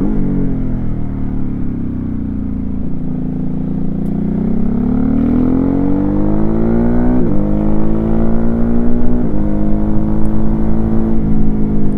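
2021 Ducati SuperSport S's 937 cc L-twin on its standard exhaust, heard from a microphone mounted on the bike. The revs fall away, then climb as it accelerates hard, with three quick upshifts in the second half, each a sudden drop in pitch followed by another climb.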